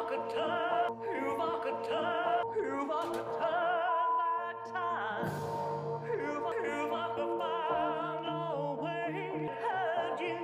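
A woman sings into a microphone with wide vibrato over instrumental backing music.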